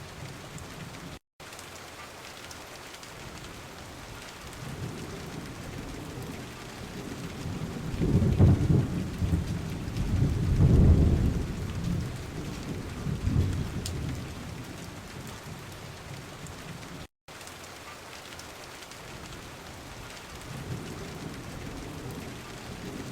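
Recorded rain falling steadily, with thunder rumbling in low rolls from about eight to fourteen seconds in. The track cuts out to silence for a split second twice.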